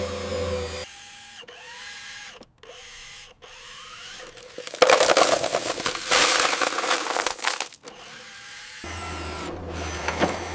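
Small electric motors of a radio-controlled crawler excavator whining, rising and falling in pitch as the arm moves. About five seconds in comes a loud gritty rattle for about three seconds, then a steady motor hum from about nine seconds in.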